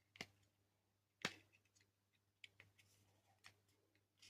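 A few short clicks and knocks of servo motors being handled and seated into the robot's casing, the loudest about a second in, with fainter ticks after.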